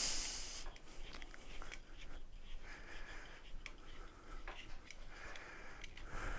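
Soft clicks, scrapes and rustles of hands working a threaded fitting at the base of a folding mobility scooter's tiller, testing whether a repair on short, damaged threads holds. A short hiss comes right at the start.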